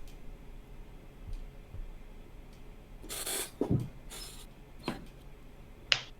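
A few short rustles and clicks over faint room noise: a hissy burst about three seconds in, another soon after, and two sharp clicks near the end.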